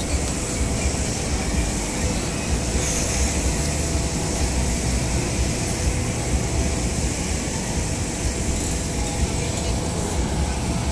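Rubber-tyred electric trackless tram moving past at close range: a steady low rumble of tyres and running gear with a faint steady hum.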